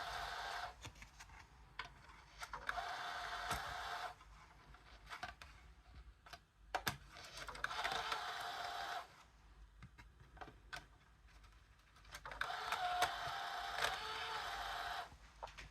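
PS4 slot-loading Blu-ray drive's loading motor and rollers whirring in repeated runs of one to three seconds, with clicks in the gaps between them, as the drive works a disc in or out. The owner takes the drive's rollers to be out of alignment.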